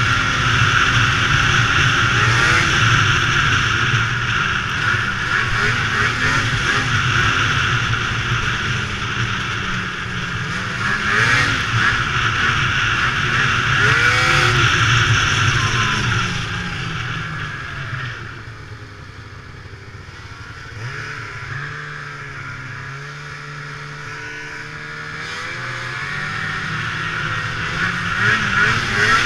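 2002 Ski-Doo MX Z two-stroke snowmobile engine running at speed along a snowy trail, heard from the rider's seat. The throttle eases off about two-thirds of the way through, and the engine builds again near the end.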